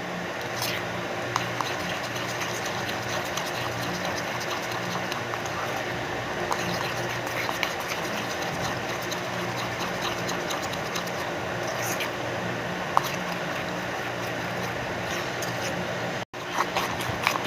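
Foamy slime mixture being stirred in a bowl, with scattered small clicks over a steady low hum.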